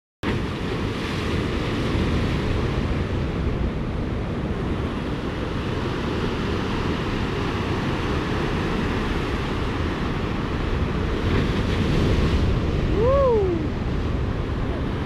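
Wind buffeting the microphone over the steady wash of rough, fast-running seaway water. About 13 s in, a short tone rises and falls once.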